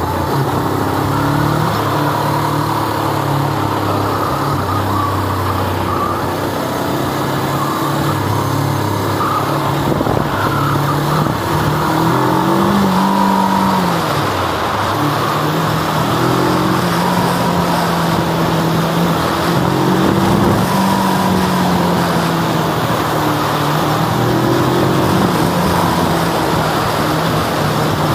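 Suzuki GS500E's air-cooled parallel-twin engine running under way, its note falling and rising several times as the rider changes speed and gears.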